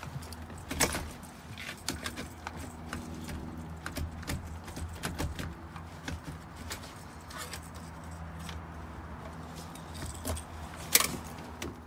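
Repeated metallic clicks and clinks as a Seattle Rapid Access Tool (SEARAT) is worked against a commercial door's handle and lock hardware. The sharpest clank comes near the end, over a steady low hum.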